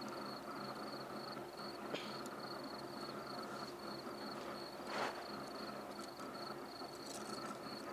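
Crickets chirping in a steady, evenly pulsing high trill, with a brief soft rustle about five seconds in.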